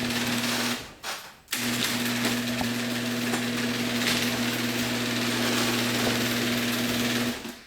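Genie Intellicode screw-drive garage door opener running, its motor turning the screw to drive the door, with a steady hum and hiss. It stops briefly about a second in, starts again half a second later, and runs for about six seconds before stopping.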